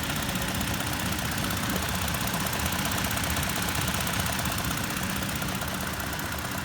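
2019 Toyota Tacoma TRD Off-Road engine idling with a rapid, steady clicking over the running engine, the odd engine click the owner is documenting.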